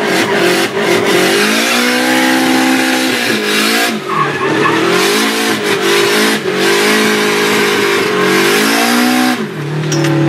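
Nissan S13's turbocharged SR20DET four-cylinder heard from inside the cabin during a drift, revving hard and rising and falling repeatedly as the driver works the throttle, with a sharp drop in revs near the end.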